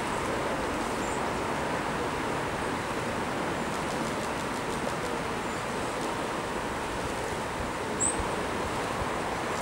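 Steady rushing of a fast-flowing river. A short high chirp, about eight seconds in, is the loudest event.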